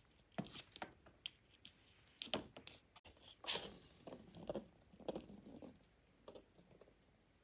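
Faint, scattered taps and scuffs of kittens moving on a tiled floor and pawing a hollow plastic ball, with one louder scuffing rustle about three and a half seconds in.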